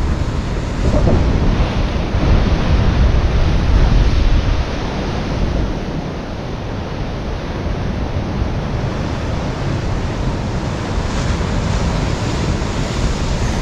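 Sea surf washing on the shore, mixed with wind buffeting the microphone, a little louder for the first few seconds.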